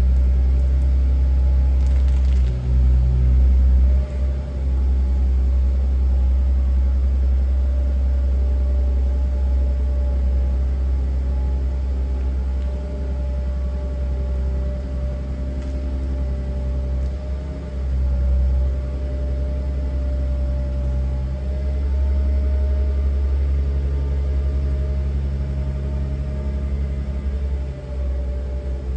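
5-ton forklift's engine running steadily as the truck drives slowly under a heavy load of about 2 tonnes: a deep, steady rumble with a faint steady whine above it.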